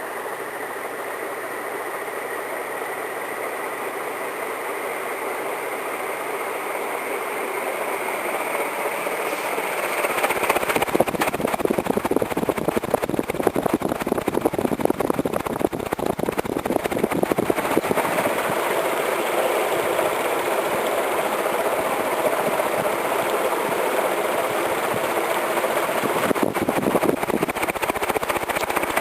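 Canarm CP56 56-inch industrial ceiling fan running, its blades moving air with a steady rush and a faint motor whine that rises slightly in pitch. About ten seconds in, the sound steps up louder and rougher, with a fluttering gustiness.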